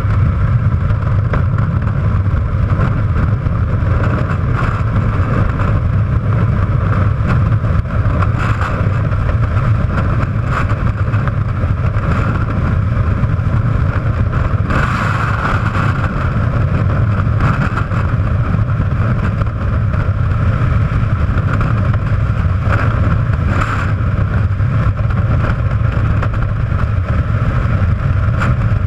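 Steady freefall wind noise buffeting a helmet-mounted action camera's microphone.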